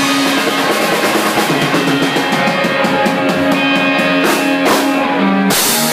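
Live rock band playing loud: electric guitar over a drum kit, with a sudden bright crash near the end.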